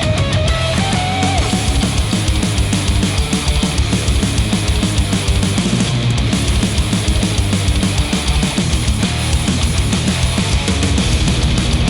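Rock music with guitar and a driving drum kit, played through HIFIMAN HE1000 V2 open-back planar-magnetic headphones and picked up by measurement microphones at the earcups.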